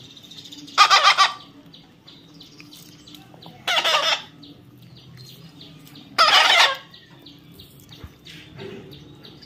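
Pet parrot giving three loud, harsh squawks about two and a half seconds apart, with faint high chirps in between.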